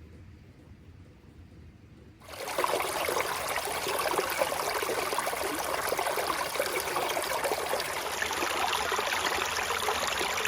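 Running water, a steady splashing rush that cuts in suddenly about two seconds in, after a faint low rumble.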